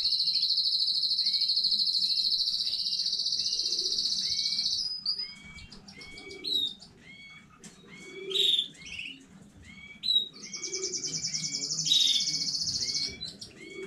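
Domestic canary singing: a long, very fast high trill, then a run of short chirping notes, then another fast trill near the end.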